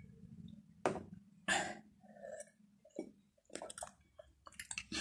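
A person drinking water from a glass close to the microphone: a handful of separate sips, gulps and swallows.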